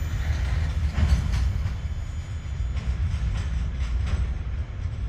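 Freight train wagons rolling through a level crossing: a steady low rumble with irregular clacks from the wheels on the rails.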